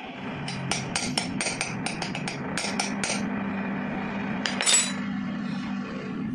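A hammer tapping a steel rod held against an old Royal Enfield Bullet cylinder head: about fifteen quick, light metallic strikes over some two and a half seconds. A brief metallic clatter follows about a second later.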